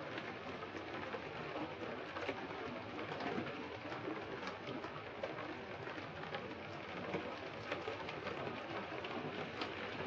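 Heavy rain falling steadily, an even hiss with many small drop ticks through it.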